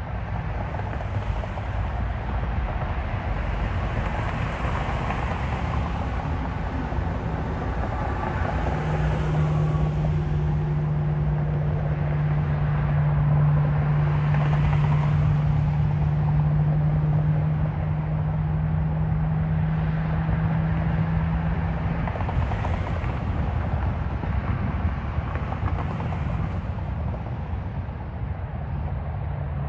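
Road traffic going by: tyre and engine noise that swells and fades several times as vehicles pass. A steady low hum runs beneath it from about nine seconds in until about twenty-two seconds.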